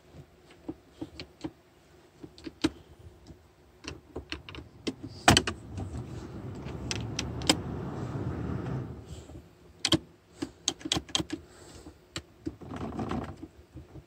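Tools and plastic trim parts being handled around a car's gear shift lever: scattered clicks and taps, a sharp click about five seconds in, then a few seconds of steady scraping noise, and more clicks after.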